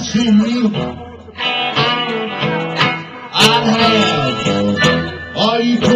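Live blues duo between sung lines: an amplified electric guitar keeps the accompaniment going while a harmonica plays bending fills over it.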